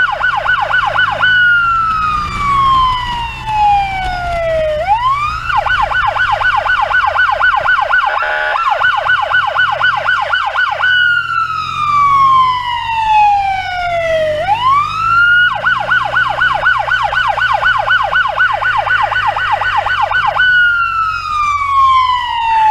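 An ambulance's electronic siren cycles between a fast yelp and one long, slowly falling wail that sweeps quickly back up, repeating about every ten seconds. Under it is a low rumble of traffic.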